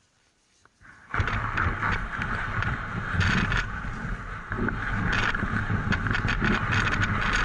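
Wooden sled setting off over snow: runners and boots scraping and crunching through the snow, with the sled's rumble and rattle picked up by a camera mounted on it. The noise starts abruptly about a second in and then runs on loud and steady.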